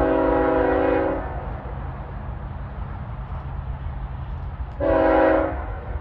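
Air horn of an approaching CSX freight locomotive sounding a chord of several notes: one blast already sounding that stops about a second in, then a second, shorter blast about five seconds in, over a low rumble from the train.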